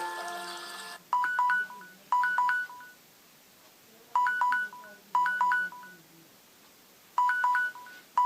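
A Samsung Galaxy J1 Ace's loudspeaker playing ringtones. A held musical ringtone ends about a second in. It is followed by a double ring: pairs of short ringing bursts about a second apart, three pairs with a pause of about two seconds between them.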